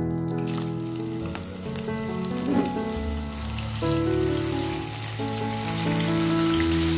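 A brown paste frying in hot oil in a ceramic frying pan, sizzling from a moment in as it hits the oil, while a spatula spreads it. Background music with held notes plays throughout.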